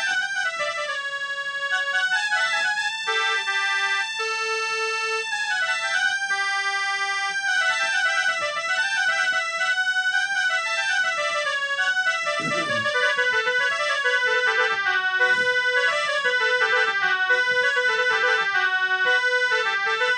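Portable electronic keyboard playing an instrumental melody, a run of stepping notes with no singing.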